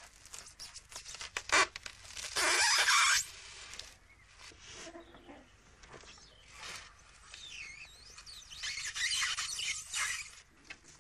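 Expanded polystyrene sheets squeaking and creaking as a needle is pushed through them and thread is drawn through and pulled tight. Scattered clicks run throughout, with a loud rasp about two seconds in and another longer rasp near the end.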